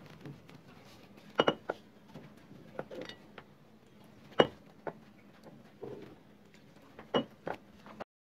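Light clinks and knocks against a glass mixing bowl as hands mix flour and water is poured in to make dough, about ten scattered taps with the sharpest about four seconds in. The sound cuts off suddenly near the end.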